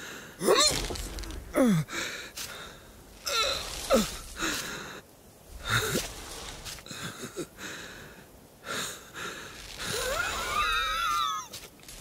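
A sheep's breathy vocal sounds: several short falling grunts and gasps, then a longer wavering cry about ten seconds in. A few knocks and a low rumble lie beneath.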